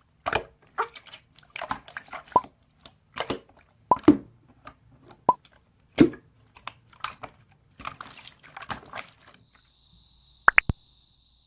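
Slime being squished and pressed by hand, giving irregular wet pops and clicks about once or twice a second. A faint steady high tone comes in near the end.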